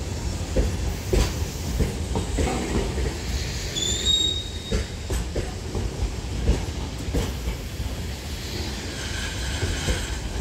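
Container wagons of a long freight train rolling past: a steady low rumble of steel wheels on rail, broken by irregular clacks as the wheels cross rail joints. A short, high wheel squeal comes about four seconds in, with fainter squealing near the end.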